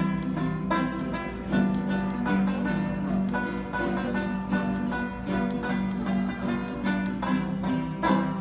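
Instrumental music on plucked string instruments, guitar-like, picking quick notes over a steady low accompaniment.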